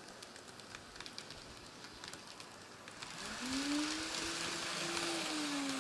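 Kato N scale GE AC4400CW model locomotive's small electric motor starting about three seconds in. It gives a whine that rises in pitch and then holds steady as the train gathers speed, with a growing hiss alongside.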